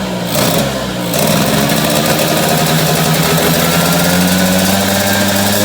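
Tuned Vespa PX two-stroke single-cylinder engine revving. It eases off briefly about half a second in, then holds at high revs and slowly climbs, easing back at the very end.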